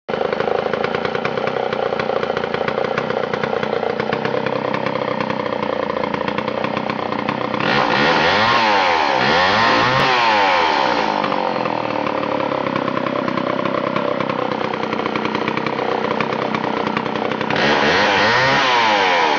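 Homelite Super 1050 automatic two-stroke chainsaw with a 42-inch bar and .404 chain, running steadily at low speed. It is revved up for a few seconds about eight seconds in and again near the end, spinning the chain so it slings bar oil off, showing that the automatic oiler is working.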